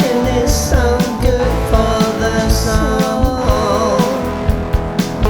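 Rock song playing as background music: drums, bass and a wavering melodic line that sounds like a sung or lead-guitar phrase between lyric lines.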